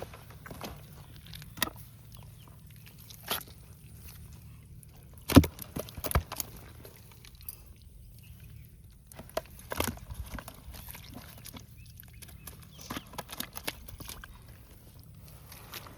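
Scattered knocks, taps and rustles of things being picked up and handled, with one sharp knock about five seconds in the loudest.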